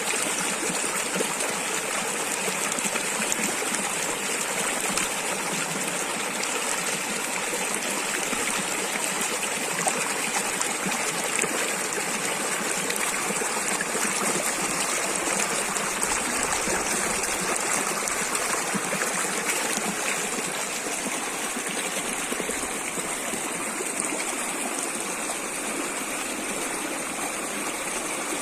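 Running water outdoors, a steady, unbroken rush with no pauses.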